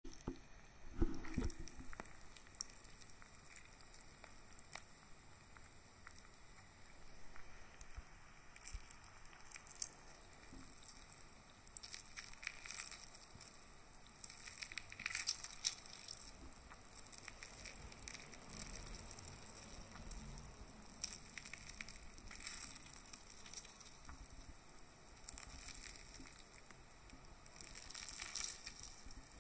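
Grapefruit halves being squeezed and crushed by hand: faint, wet squelching and crackling of the pulp as the juice is pressed out, with the loudest squelch about a second in.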